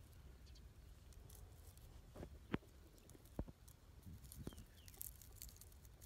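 Near silence with soft rustling and a few short sharp clicks as hands handle a grasshopper over a mesh net bag.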